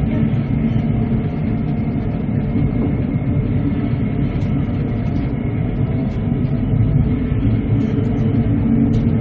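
Steady rumble of a moving passenger train heard from inside the carriage, with no change in pace.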